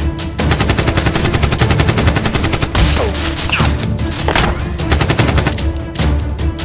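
Rapid automatic gunfire, a long burst of many shots a second lasting about two seconds, then more shots in shorter bursts, over background music.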